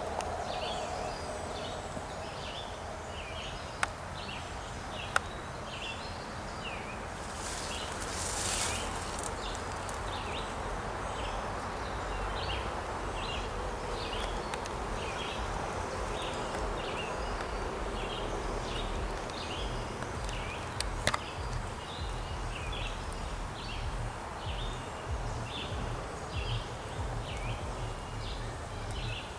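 A bird calling steadily, one short high chirp after another at about three every two seconds, over a low rumble, with a few sharp clicks.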